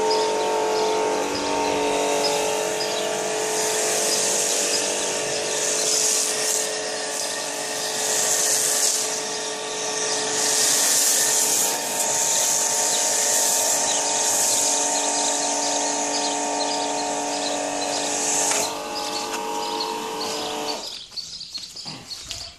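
Kärcher 140-bar electric pressure washer running steadily with a pump hum while its snow foam lance sprays onto the car, a hissing spray that swells and fades. Near the end the spray stops, and a couple of seconds later the motor stops too.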